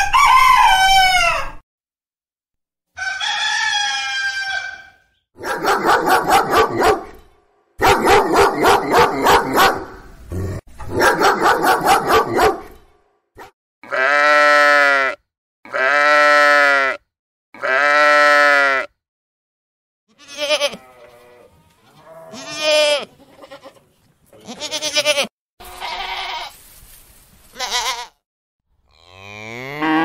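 A series of farm-animal calls: the tail of a rooster's crow, then a run of sheep and goat bleats, several quavering, three clear even bleats in a row midway, then shorter ones. A cow's moo begins right at the end.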